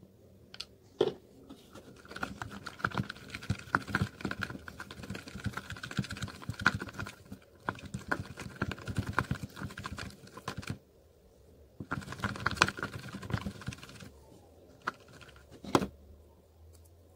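Slime being mixed in a plastic tub as borax activator is worked into the glue: a quick, dense run of sticky clicks and crackles. It pauses about ten seconds in and starts again briefly.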